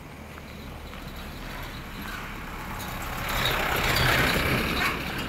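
A motor vehicle passing close by: its noise rises to a peak about four seconds in, then fades.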